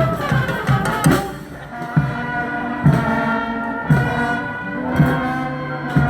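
Street band playing live: a quick drumbeat that settles about a second in to one heavy beat a second, under long held chords.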